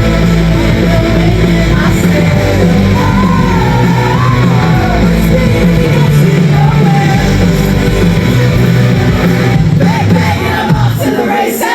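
Loud live band music with a singer's voice over a strong bass line. Near the end the bass drops out and the sound dips briefly.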